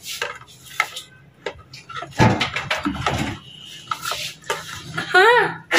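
A spoon or whisk clacking and scraping against a plastic tub as a thick chicken marinade is stirred, in short irregular strokes. A child's voice sounds briefly near the end.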